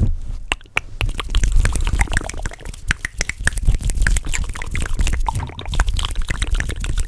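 Fast, wet mouth sounds right up against a microphone: rapid, irregular clicks and smacks, many per second, over a low rumble.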